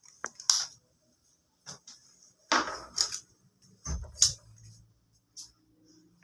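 Sharp plastic clicks and knocks, as of a table fan's switch buttons being pressed and the fan handled, then a low electric motor hum that starts about four seconds in and keeps running.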